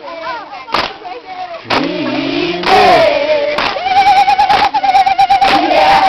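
Voices singing and calling, with one high voice holding a long note with a fast warble from about halfway through, over scattered hand claps.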